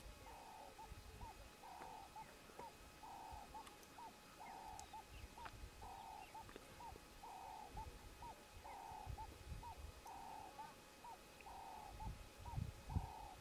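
An animal call repeated at an even pace, about once every second and a half: each call is a short buzzy note followed by a quick rising note. Low rumbling thumps sit underneath and are strongest near the end.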